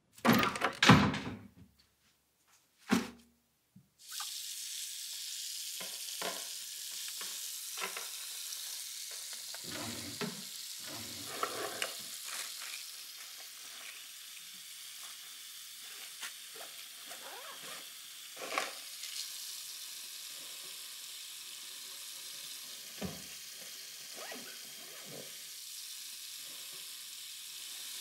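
A water tap running steadily into a bathroom sink, a continuous hiss that starts about four seconds in, over soft knocks and rustles of a drawer's contents and a bag being handled. A few loud knocks come before the water starts.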